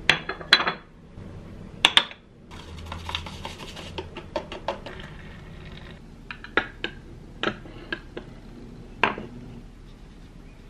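Kitchen clatter of cups and a spoon being handled to make a milky coffee: a string of sharp clinks and knocks, some ringing briefly, with a short stretch of low humming noise about three seconds in.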